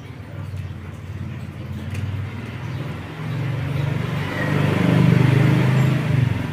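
A motor vehicle passing by, its engine and tyre rumble building to loudest about five seconds in, then fading.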